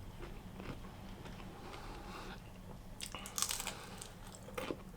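A person chewing a mouthful of chicken stir fry, with crunches; the loudest come about three seconds in and again near the end.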